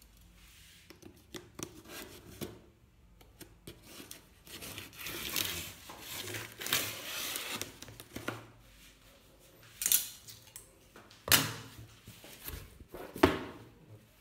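Cardboard box being opened by hand: cardboard rubbing and scraping, with a longer stretch of scraping midway and several sharp knocks in the last few seconds.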